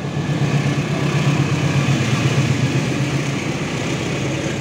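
Diesel locomotive passing close by, its engine running with a steady low drone, followed by the passenger carriages rolling past with a broad rushing rail noise.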